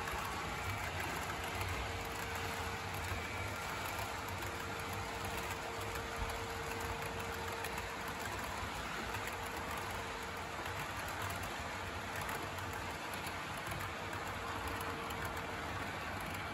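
HO-scale model freight train running on the layout: a steady rattle of the container wagons' wheels over the model track, with a thin steady whine underneath that stops shortly before the end.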